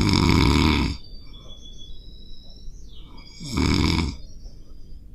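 A cat snoring: two loud snores about three and a half seconds apart, with faint thin high whistling between them.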